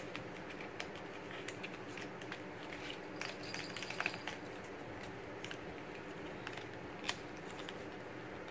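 Small clicks and crinkles of a lipstick and its packaging being handled and opened, with a cluster of crackling around the middle and one sharp click near the end, over a steady low room hum.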